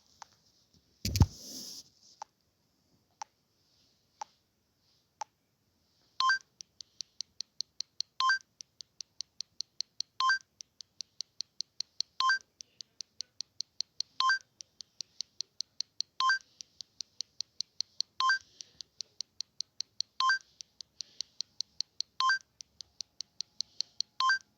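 Electronic beep sound effects. A thump comes about a second in, then single clicks once a second. From about six seconds in comes a steady run of short high beeps, about five a second, with a louder two-tone beep every two seconds.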